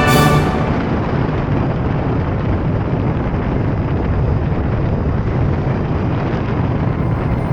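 Steady rush of wind buffeting and motorcycle road noise picked up by a camera clamped to a Ducati Multistrada V4S while riding. A short loud burst comes right at the start.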